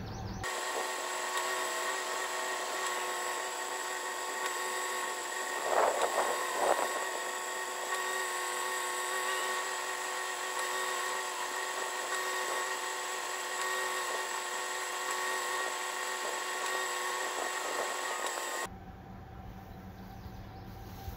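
A steady, drill-like whine made of several held tones, cutting in and out abruptly, with two short louder bursts about six seconds in.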